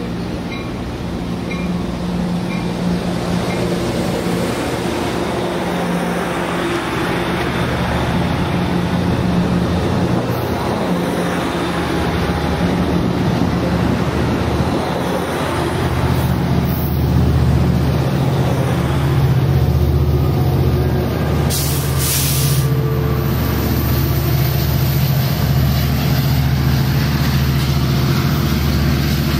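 Amtrak Pacific Surfliner passenger train rolling along the platform, bilevel cars passing close by. The steady diesel hum of its EMD F59PHI locomotive grows louder as the locomotive draws near, about halfway through. A short hiss of air comes about two-thirds of the way in.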